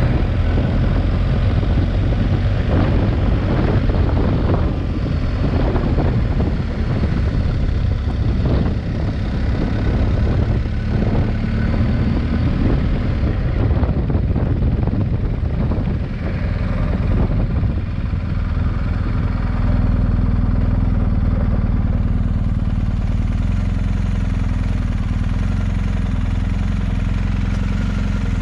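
Motorcycle engine running steadily while riding, with a continuous noisy rush over the engine note.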